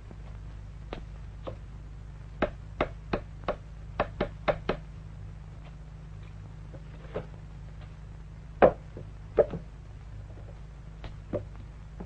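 A nail being hammered into a wall: two quick runs of four taps, then a few single, heavier blows.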